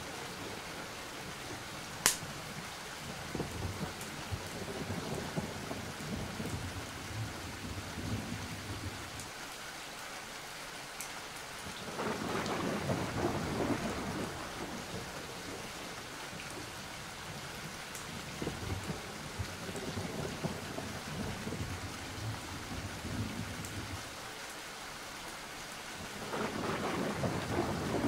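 Steady rain on a haunted-house storm ambience, with rolling thunder that swells twice, once about halfway through and again near the end. One sharp crack stands out about two seconds in.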